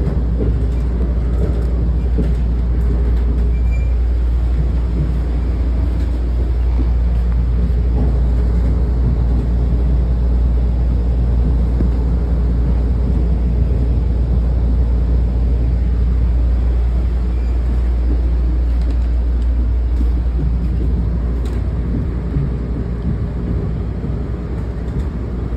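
Steady low rumble and running noise inside the passenger coach of a moving MARC commuter train, easing slightly near the end.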